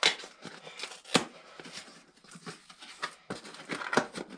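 Packaging being pulled open by hand: sharp clicks and rustling, with the loudest clicks right at the start and about a second in, and a busier run of clicks near the end.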